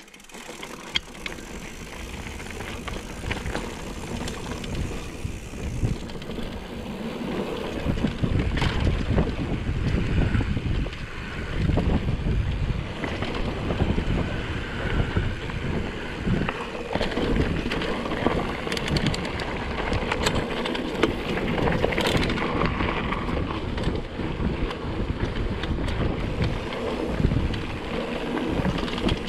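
Mountain bike riding downhill on a rough trail: wind rushing over the GoPro's microphone, tyres rumbling on the ground, and the bike rattling with frequent sharp knocks. The noise grows louder over the first several seconds as the bike gathers speed, then stays loud.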